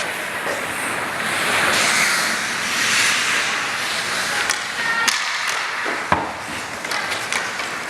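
Ice hockey play on a rink: skate blades scraping and hissing on the ice, with scattered sharp clacks of sticks and puck and a louder knock about six seconds in.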